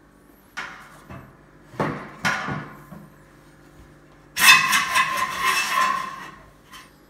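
A few sharp knocks while the wooden frame is handled in a steel power rack, then about two seconds of metal scraping and rattling with a ringing note as a 1-inch steel bar is slid through the rack upright and frame.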